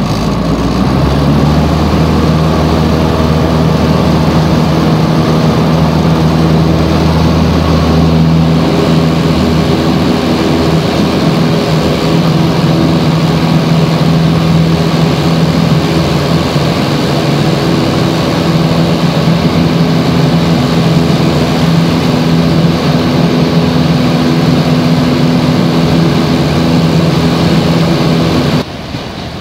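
Piper PA-28 Cherokee's four-cylinder Lycoming engine and propeller at full power, heard inside the cabin. The engine note swells about a second in as power comes up for takeoff and holds steady through the climb, then drops sharply near the end.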